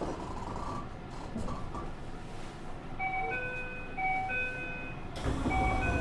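Two-note chime aboard a Tsukuba Express TX1000 series train standing at a station, a higher note then a lower one, repeating about once a second from about halfway in, over the car's low background rumble. A louder low rumble sets in near the end.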